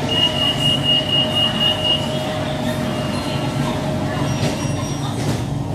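BTS Skytrain car standing at a station: steady electrical and mechanical hum of the train's equipment, with a high steady tone for about the first two seconds.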